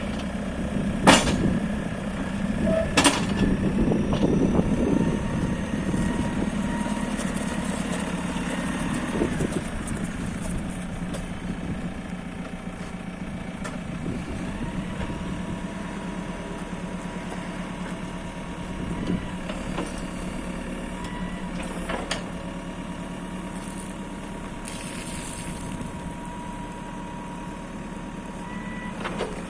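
JCB 2CX backhoe loader's diesel engine running steadily, louder for the first few seconds, with two sharp clanks about a second and three seconds in and a couple of lighter knocks later on.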